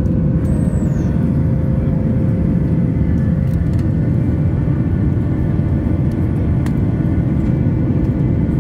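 Cabin noise of a Boeing 737 MAX 8 in flight, heard from a window seat: the steady rumble of its CFM LEAP-1B engines and the airflow, with a faint steady hum above it.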